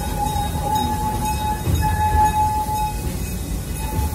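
Park passenger train running, with a steady low rumble from the cars on the track. Over it sounds a steady high squeal that breaks off briefly now and then.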